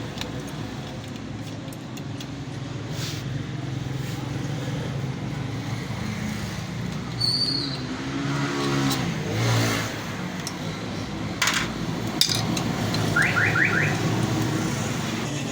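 Motor vehicle engines running nearby with a steady low hum. Near the middle an engine note rises and falls. Later come a few sharp metallic clicks and a short run of high chirping beeps.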